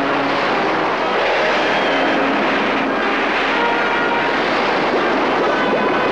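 A steady, loud rushing roar, with a few faint held tones over it.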